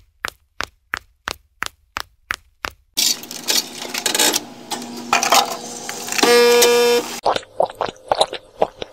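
Footsteps on a hard floor, about three a second. Then a coffee vending machine runs with a steady noise and sounds a held buzzing tone for under a second. A few small clicks follow near the end.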